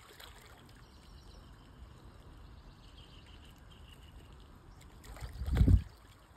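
Large hooked rohu carp thrashing and splashing at the water's surface beside the bank, with one loud splash about five and a half seconds in.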